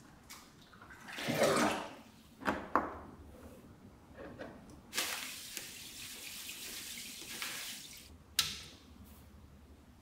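Iron part lowered into a plastic tub of water with a splash, then two light metallic clinks. White powder is poured into the water with a steady hiss for about three seconds, and a sharp click follows near the end.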